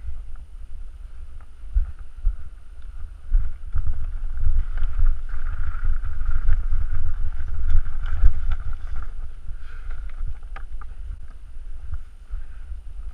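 Wind rumble on a handlebar or helmet camera's microphone as a mountain bike rolls over a rocky singletrack, with constant small rattles and knocks from the bike and stones under the tyres.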